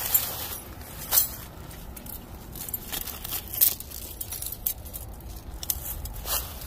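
Irregular sharp clicks and clinks over low rustling, a few of them louder: a person handling gear and clearing brush at a trap set.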